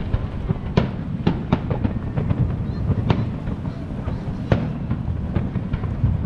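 Aerial fireworks bursting: a string of sharp bangs at irregular intervals, the loudest about four and a half seconds in, over a steady low background rumble.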